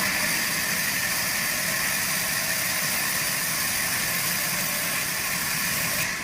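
Sawmill machinery running steadily: a constant hiss over a low hum, changing abruptly near the end.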